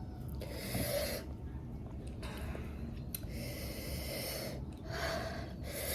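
A person breathing hard, with several separate hissing breaths drawn through the mouth and nose, from the burn of an extremely spicy chili chip.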